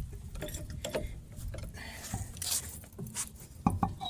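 Scattered metal clinks and knocks from tools and parts being handled, with a few louder knocks near the end.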